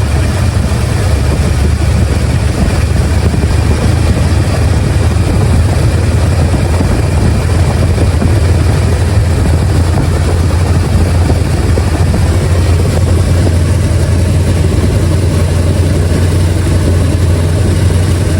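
1971 Mercury Comet's engine idling steadily, heard close up in the engine bay. It is running so that the power steering pump can be watched leaking.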